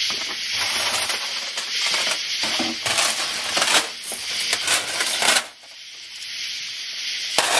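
Steel chain rattling and clinking as it is picked up and handled, with rubbing and rustling. The handling stops a little over halfway, leaving a steady hiss, with one more clink near the end.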